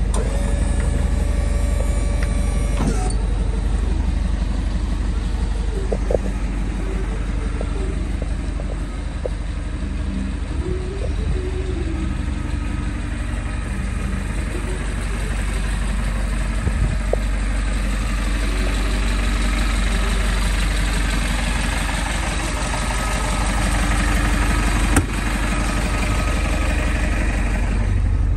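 Diesel engine of a DAF LF box truck idling steadily, a constant low hum. A steady pitched tone sounds over it for the first three seconds, and a few light clicks come later.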